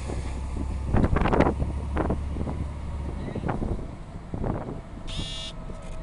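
A cruise ship's horn giving a deep, steady blast that cuts off sharply about three seconds in.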